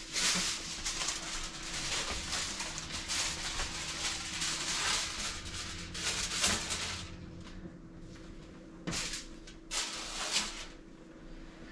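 Aluminium foil rustling and crinkling for several seconds as a sandwich on a foil sheet is handled and set onto an oven rack. It is followed by two or three short scraping rustles near the end as it is pushed into place.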